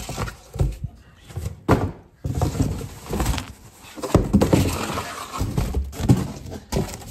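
Cardboard boxes being handled and a box flap pulled open: a run of irregular cardboard rustles, scrapes and thumps.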